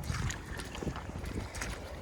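Wind rumbling on the microphone, with scattered short clicks and crunches of hikers' footsteps on rocky ground.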